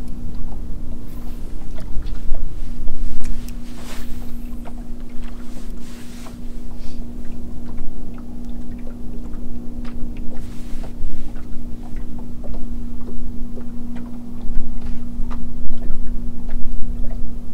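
Electric trolling motor on a small fishing boat humming steadily, over an uneven low rumble of wind and water against the hull, with scattered light clicks and taps.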